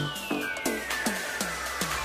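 Background electronic music: a long falling sweep over drum hits about three a second, each dropping in pitch, with the bass dropped out.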